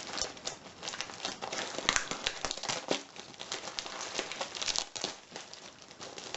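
Packaging crinkling and rustling as it is handled, with many irregular small crackles.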